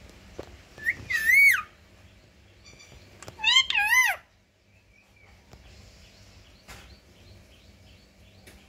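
Indian ringneck parakeet giving two loud whistled calls, about a second in and again around three and a half seconds in, each with a wavering, up-and-down pitch.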